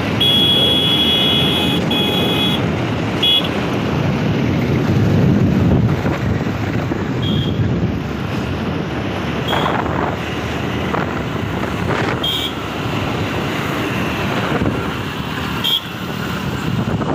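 Steady road and wind noise from a moving vehicle travelling along a busy road, with passing traffic. Short high-pitched beeps sound over it: a run of them in the first couple of seconds, then single short beeps every few seconds.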